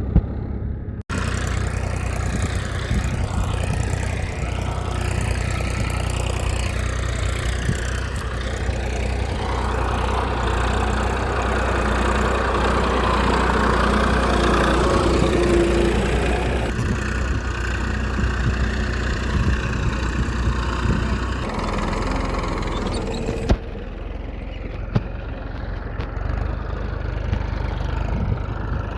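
A small motor running steadily with an engine-like hum, its sound changing abruptly several times along the way.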